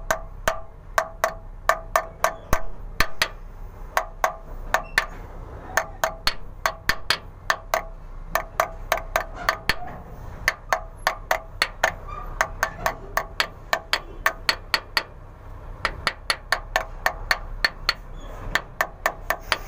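Small hammer tapping lightly and repeatedly on the metal rim of a new differential pinion oil seal, driving it evenly into its bore. The quick strikes come about two or three a second in runs with short pauses, each with a brief metallic ring.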